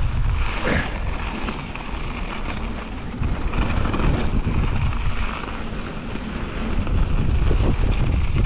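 Wind buffeting an action camera's microphone while a mountain bike rolls fast down a dirt flow trail, with low tyre rumble and a few sharp clicks and rattles from the bike. The rush dips a little in the middle and rises again from about seven seconds in.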